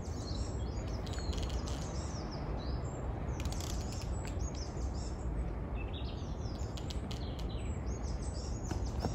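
Woodland birds chirping and singing in short scattered phrases, over a steady low rumble.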